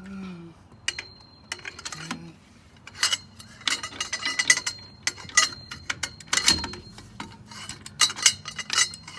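Metal clinks and knocks of a large wrench and an iron bar on a car wheel's lug nuts as they are worked loose. The clinks come irregularly, several a second, and get busier about three seconds in. A faint low hum runs underneath.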